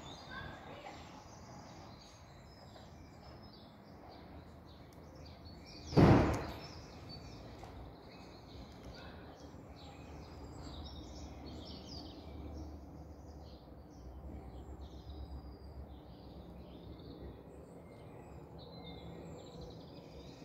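Birds chirping and calling on and off over quiet outdoor ambience with a faint low rumble. A single brief loud thump about six seconds in.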